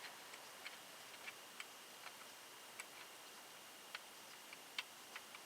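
Faint, irregular light clicks and ticks of small metal parts being handled, about fifteen scattered across a few seconds, over a faint steady high tone.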